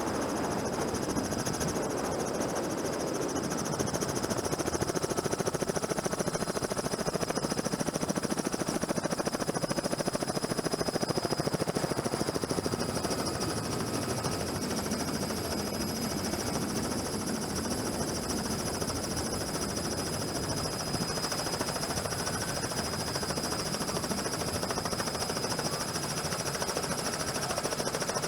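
Helicopter heard from on board: rapid, steady rotor chop with a steady high whine over it.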